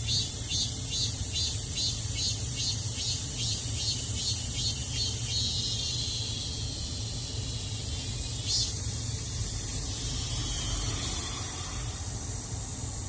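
Cicadas singing: a rhythmic pulsing call of about three pulses a second gives way about five seconds in to a continuous high buzz, which swells louder near the end and then cuts off suddenly. A steady low rumble underlies it.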